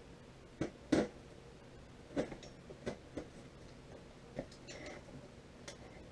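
Scissors and hands working at a cardboard box, cutting packing tape and cardboard: a string of irregular short scrapes, snips and clicks.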